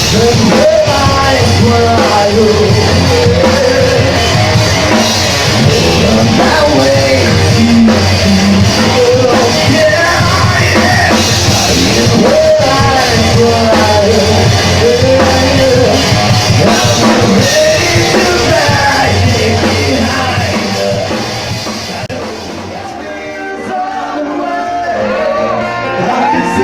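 Rock band playing a cover song: a singer over drum kit and guitars. About 22 seconds in, the full band drops out and the music turns quieter.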